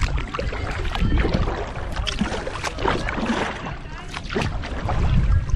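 Kayak paddle strokes: the blades dip and splash in slow, shallow river water, one stroke after another.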